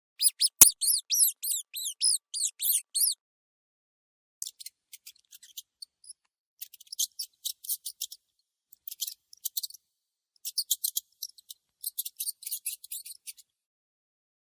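Mouse squeaking: a quick run of high, arching squeaks, about five a second, for the first three seconds. Then come fainter, shorter squeaks and clicks in scattered clusters.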